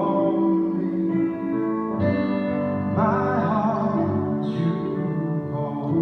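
A worship song sung over acoustic guitar accompaniment, with a held sung note wavering in vibrato about halfway through.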